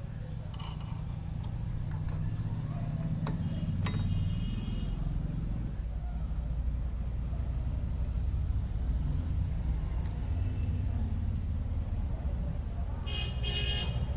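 Scooter engine running steadily with a low rumble that builds over the first couple of seconds, with a brief high-pitched toot near the end.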